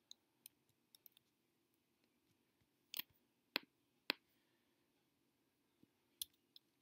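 Faint, sparse clicks of a computer mouse and keyboard during text editing: a few soft clicks in the first second, three louder ones about three to four seconds in, and two more near the end.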